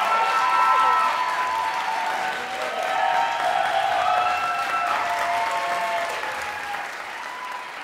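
Audience applauding, with some long, high cheers over the clapping. The applause dies down near the end.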